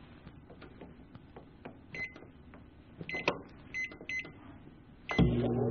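Admiral microwave oven's keypad beeping as the buttons are pressed to set one minute: a short beep about two seconds in and a few more between three and four seconds in. About five seconds in the oven starts running with a steady hum.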